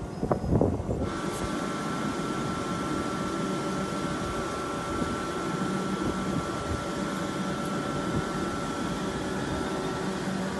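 Class 458 electric multiple unit at the platform, humming steadily with fan-like equipment noise and a few constant tones as it slowly pulls away. Brief knocks and clicks come first, before the hum sets in suddenly about a second in.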